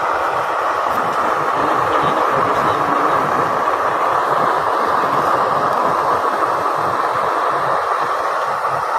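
Homemade waste-oil burner stove running, with an electric blower forcing air into the burning oil: a loud, steady rushing noise.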